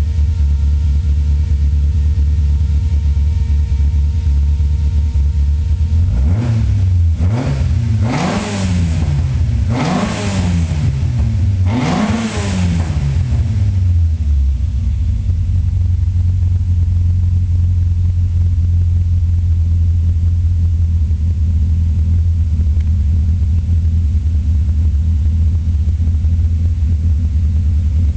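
Toyota 4A-GE four-cylinder engine on Weber 45 carburettors, running on a first custom MegaJolt ignition curve. It idles at about a thousand rpm, is revved in a run of short throttle blips, each rising and falling, over about eight seconds from about six seconds in, then settles back to a steady idle.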